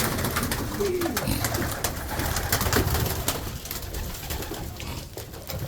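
Pigeons cooing, with many short, sharp clicks and knocks among them.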